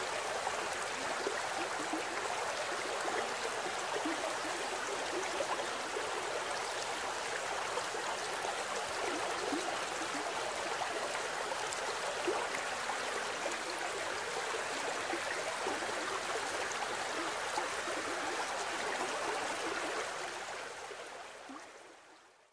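Mountain stream running over rocks: a steady rushing and bubbling of water that fades out over the last couple of seconds.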